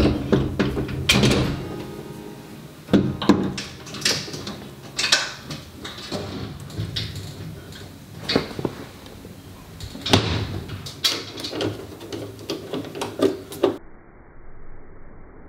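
Scattered sharp knocks, clicks and clatters as hands fit parts to a metal-framed glass cabinet, about a dozen strong ones, stopping near the end.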